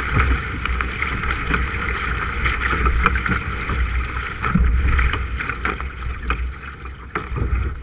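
Paddle strokes splashing and water rushing along a K1 sprint kayak's hull, with wind rumbling on the microphone. The strokes come irregularly, and the sound fades over the last couple of seconds as the paddling eases.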